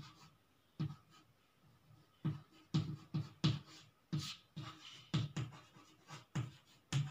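Chalk writing on a chalkboard: a string of short scratching strokes and taps, roughly two a second, with a brief pause about a second in.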